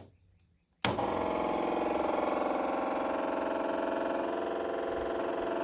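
MEP-803A diesel generator's electric fuel pump buzzing steadily as it primes the fuel system on battery power. The buzz starts abruptly just under a second in.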